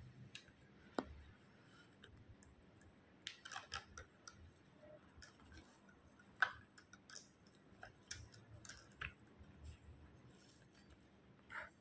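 Beaded flower stems being handled and adjusted in a plastic pot, the beads giving scattered light clicks and rattles against each other and the pot, with one sharper click about six and a half seconds in.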